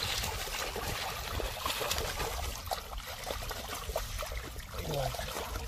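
Hands groping through mud in shallow pond water: steady trickling and sloshing, with many small wet splashes and squelches.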